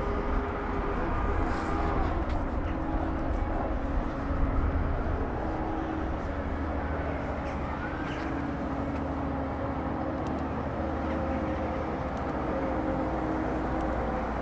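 Steady machine hum over a low rumble, with several held tones and a brief rising whine about eight seconds in.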